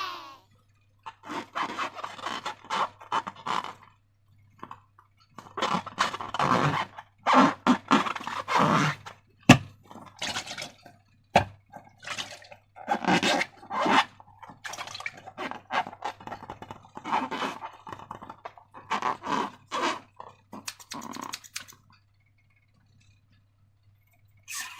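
Slime being worked by hand: many short, irregular sticky scraping and crackling noises in quick bunches, with one sharp click about nine and a half seconds in. The handling stops about two seconds before the end.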